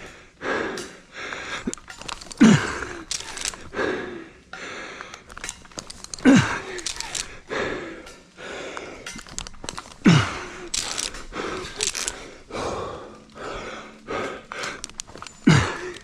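A climber breathing hard while ascending a rope, with a loud exhale that falls in pitch about every four seconds, each one a push of effort.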